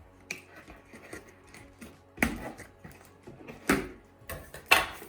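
Cardboard box and packaging being handled and opened: scattered rustles and light knocks, with sharper knocks about two, three and a half and four and a half seconds in.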